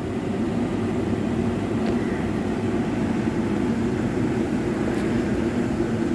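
A steady low mechanical drone with a couple of held low tones.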